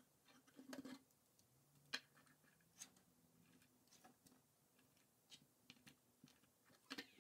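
Faint, scattered clicks and taps of plastic K'NEX rods, connectors and wheels being snapped together and handled on a tabletop, about half a dozen over several seconds, the sharpest about two seconds in; otherwise near silence.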